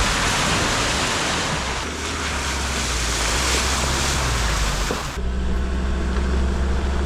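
Vehicle driving on a wet dirt track, its tyres hissing and splashing through water over a steady low engine and road rumble. The water noise stops about five seconds in, leaving the engine rumble.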